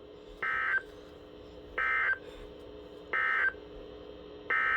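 Emergency Alert System end-of-message signal: three short, identical bursts of buzzing digital data tones, each about a third of a second long and about a second apart, marking the end of the alert. A fourth burst begins near the end.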